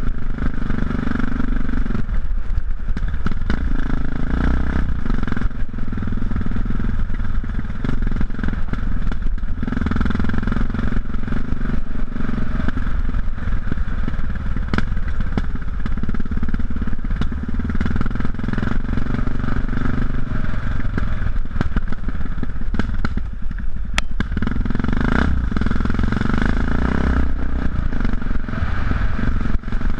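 Yamaha XT660X's single-cylinder engine running through Leo Vince aftermarket exhausts while the bike is ridden over a dirt trail. The engine note drops off and picks up again several times as the throttle is eased and reopened, with scattered knocks.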